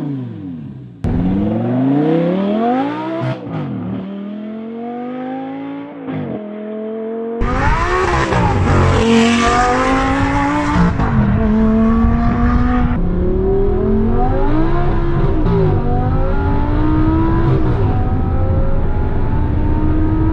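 Audi R8's 5.2-litre V10 breathing through an Armytrix valved exhaust with the valves open, accelerating hard through the gears. Its pitch climbs in repeated sweeps that drop back at each upshift, with abrupt jumps where separate recordings are cut together.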